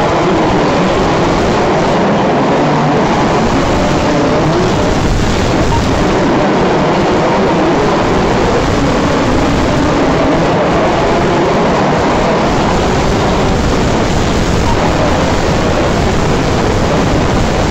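Several radio-controlled 4WD off-road racing cars running laps on a dirt track, their motor whine rising and falling over a steady wash of noise, echoing in a large hall.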